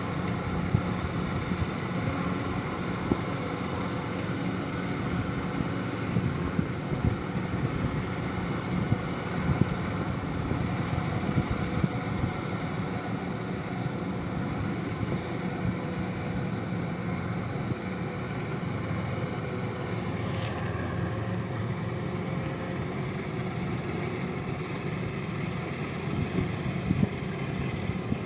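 An engine running steadily, with a slight shift in its pitch about twenty seconds in.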